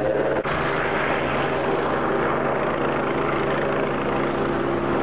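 A helicopter flying overhead: steady rotor and engine noise with a constant low hum.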